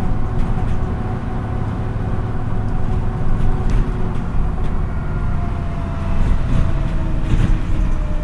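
MAN NÜ 313 bus heard from inside while driving: the diesel engine runs under steady road and tyre noise, with a few short rattles. Over the second half the engine note slowly falls, as when the bus eases off.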